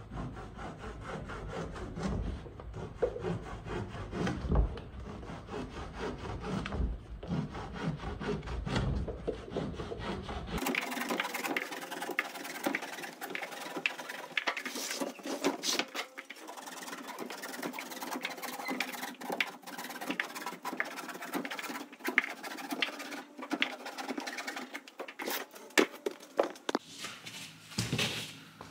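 Handsaw cutting through a thick rubber stable mat on a wooden workbench, with repeated rasping strokes as the warped interlocking edge is trimmed off so the mats can butt together.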